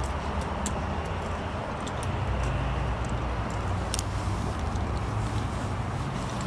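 Steady low rumble of outdoor traffic and lot ambience, uneven in level, with scattered light clicks and taps, the sharpest about four seconds in.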